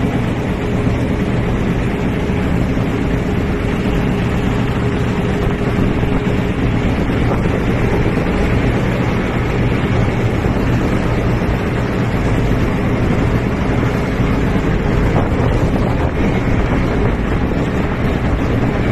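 A boat engine running steadily, with wind noise on the microphone.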